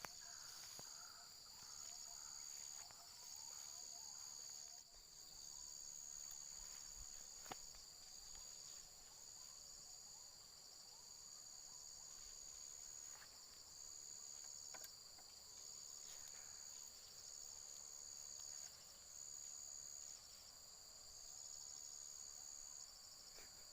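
Faint chorus of insects trilling steadily at two high pitches, the higher trill coming and going in stretches of a second or two.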